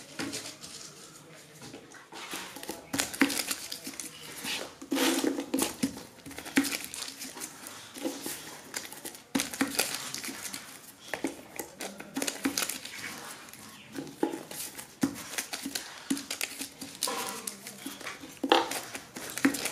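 Irregular light taps, clicks and paper rustling as small paper-cased atom bomb crackers are wrapped, pasted and set down by hand on a wooden board.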